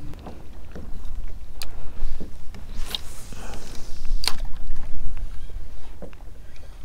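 Kayak on open water: a steady low rumble of water and air movement, broken by a few sharp clicks or knocks about a second and a half apart.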